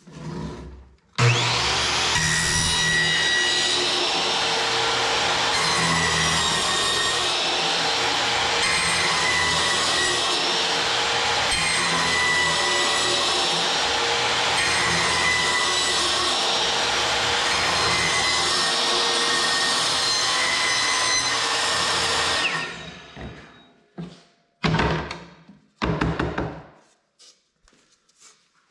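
A power saw cutting wood for about twenty seconds, with background music mixed in. Both start suddenly about a second in and fade out, followed by a few short knocks.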